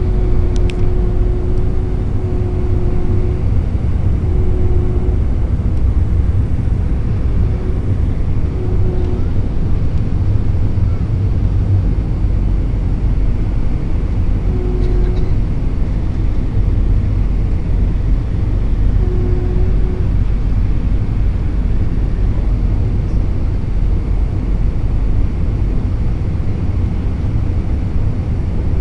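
Cabin noise of an Airbus A321-231 airliner in flight: a steady, loud, low rumble of its IAE V2500 turbofan engines and the rushing air, with a humming tone that comes and goes several times.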